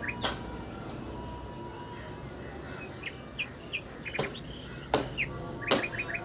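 Birds chirping: short, quick chirps in small runs about three seconds in and again near the end, over a steady background hiss, with several sharp clicks that are the loudest sounds.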